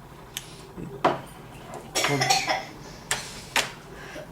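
Handling of the power supply's PCIe power cables and connectors: a handful of sharp plastic clicks and clatters, spaced roughly a second apart.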